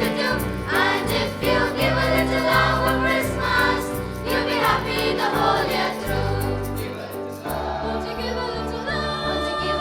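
A school choir singing a Christmas song in Tamil over instrumental accompaniment. About three-quarters of the way through, the voices pause and held instrumental notes carry on.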